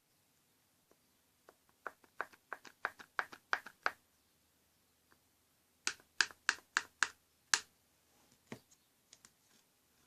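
Slime worked by hand, giving sharp popping clicks in two quick runs: about ten over two seconds, a pause, then about seven more in quicker succession, with a few fainter pops near the end.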